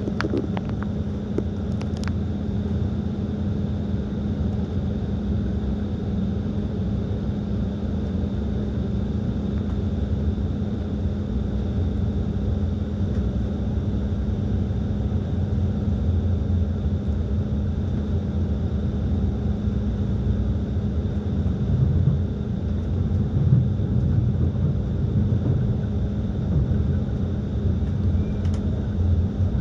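Moving passenger train heard from inside the carriage: a steady low running rumble with a constant hum and a faint high whine.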